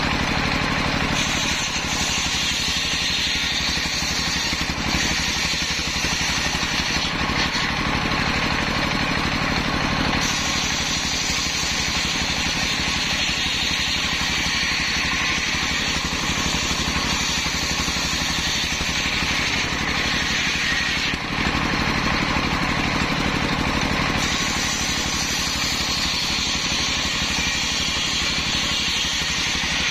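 Large belt-driven table circular saw ripping a waru log lengthwise, driven by a single-cylinder diesel engine running steadily; the cutting noise shifts a few times as the log is pushed through the blade.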